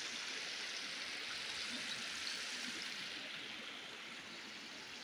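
Irrigation canal water spilling over a low concrete weir and running shallow over stones: a steady hiss of flowing water, easing slightly about three seconds in.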